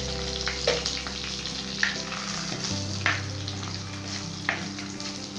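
Black pepper and other spices sizzling in hot oil in a pan as they are stirred, with four sharp knocks spaced about a second apart.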